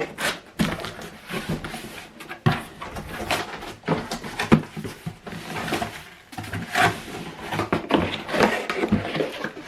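Cardboard box and packaging being opened and handled: irregular rustling, scraping and knocks.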